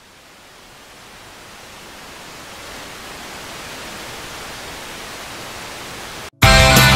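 A hiss of even noise with no tone or rhythm, swelling over the first three seconds and then holding. It cuts out for a moment near the end, and loud rock music with distorted guitar comes in.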